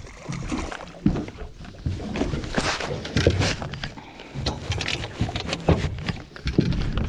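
Close handling noise: irregular knocks, bumps and rubbing as the camera and fishing gear are moved about while a hooked flathead is brought into the boat.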